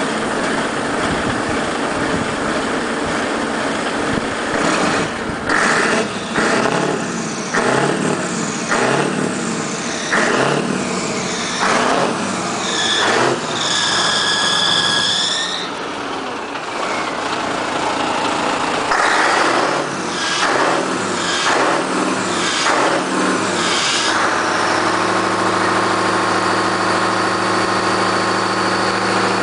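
Scania 143M 450's V8 diesel being revved in repeated short blips, then settling to a steady idle near the end. About halfway through a high squeal rings out for a couple of seconds, which the owner takes for a belt that needs tightening.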